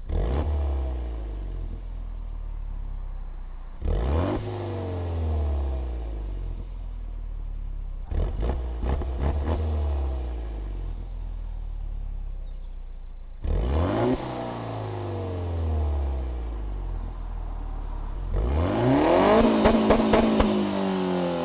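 Peugeot 308 GTi's 1.6-litre turbocharged four-cylinder, with its centre resonator removed and straight-piped, revved while stationary and heard at the exhaust. It idles between short blips about every four seconds, each climbing and falling back, then near the end a run of rapid revs.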